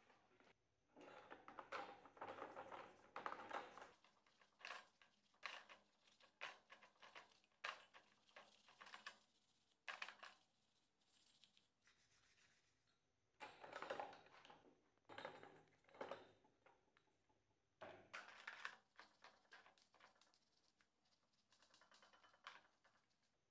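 Faint, intermittent scraping and rubbing with light knocks, in several short spells, as greasy metal shock-absorber fork parts are handled and scrubbed in a plastic tub.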